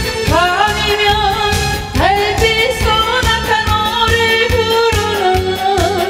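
A song with a backing track: a woman's voice holds long notes that scoop up into pitch, over a steady beat.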